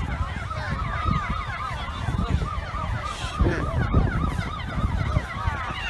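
Emergency sirens in a fast yelp, the pitch sweeping up and down several times a second, over a loud low rumbling and buffeting.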